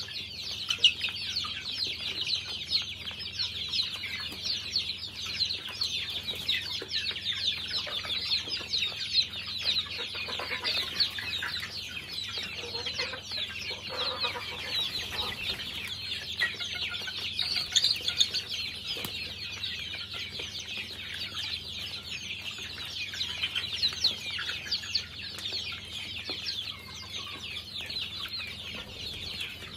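A flock of half-grown chicks peeping nonstop, many short high calls overlapping.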